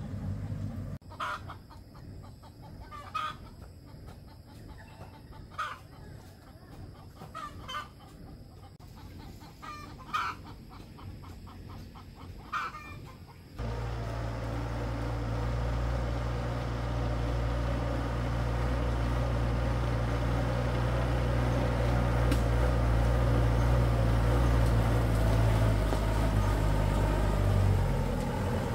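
Chickens clucking, short calls every two seconds or so. About halfway through, the sound cuts suddenly to the homemade truck's engine running steadily and loudly, its pitch changing near the end.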